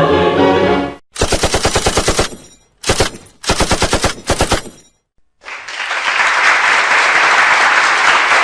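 Machine-gun sound effect: three bursts of rapid automatic fire, the first about a second in, with short gaps between them. A brief musical sting ends just before the gunfire, and about five and a half seconds in a steady rushing noise begins and runs on.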